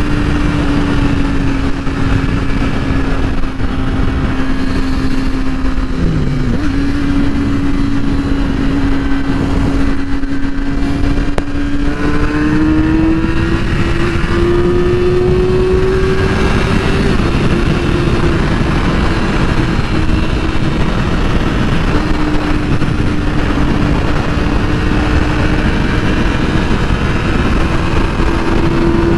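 2008 Yamaha R6's inline-four engine running at a steady cruise, its pitch climbing gradually about twelve seconds in and settling back down a few seconds later, over a constant heavy rush of wind and road noise.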